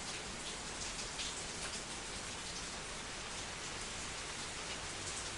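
Steady rain falling on a hard surface, an even hiss with scattered sharper drop ticks.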